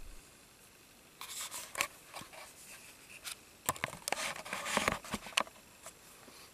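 Faint rustling, rubbing and clicking handling noises in two bursts, one about a second in and a longer one from about three and a half to five and a half seconds in.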